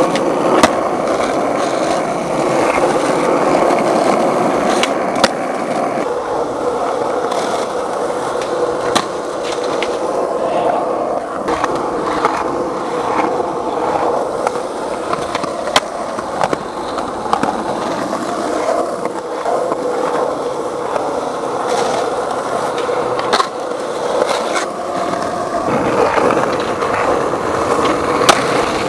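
Skateboard rolling on asphalt and pavement, the wheels giving a steady rumble, with sharp clacks of the board hitting the ground every few seconds.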